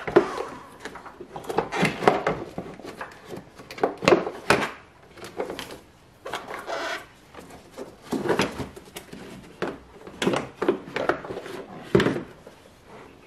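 Toyota Prius plastic air cleaner housing being worked loose and lifted out of the engine bay: irregular knocks, rattles and scraping of hard plastic against plastic and engine parts.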